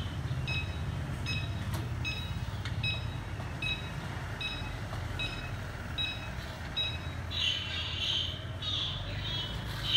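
Short, even electronic beeps from an NT28 electric three-wheeled mobility scooter, about one and a third a second, stopping after about seven seconds, over a low street rumble.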